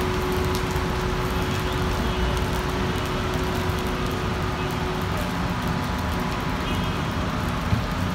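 Steady wash of car traffic on a rain-soaked road, tyres hissing on the wet surface under the rain. A steady low hum fades out about five seconds in, and a single sharp click comes near the end.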